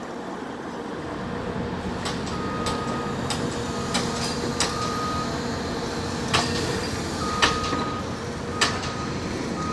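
Heavy diesel machinery, the big crane's engine, running steadily. Short high beeps sound on and off from a few seconds in, with scattered sharp clanks and knocks.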